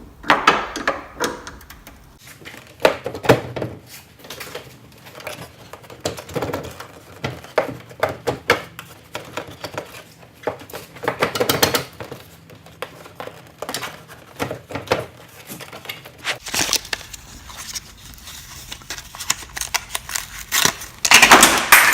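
Hand-tool work on a car's headlamp assembly: irregular clicks, knocks and rattles of a socket wrench and plastic parts. Near the end comes a loud, bright clatter, the old turn-signal bulb being dropped.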